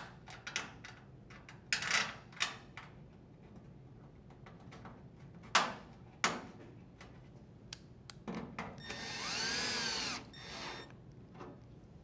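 A drill driver runs for about two seconds near the end, speeding up and then slowing, as it drives a screw into the dryer's sheet-metal top panel. Before it come a few sharp clicks and taps of the screw and metal being handled.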